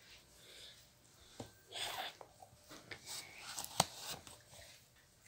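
Soft knocks and rustling from a phone being handled and moved about, with a sharper click nearly four seconds in.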